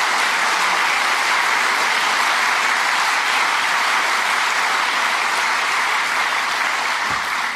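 An audience applauding steadily, the clapping beginning to die away near the end.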